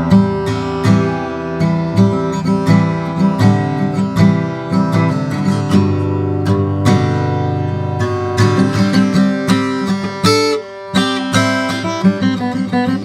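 Handmade OM acoustic guitar with Brazilian rosewood back and sides and a torrefied Adirondack spruce top, played solo: quick plucked notes over ringing bass notes, with a short break about ten seconds in.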